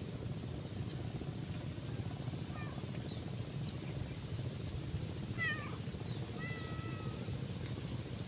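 Kitten meowing: a couple of faint calls about two and a half seconds in, then two clearer meows, one falling in pitch about five seconds in and one held steady about a second later, over a steady low background rumble.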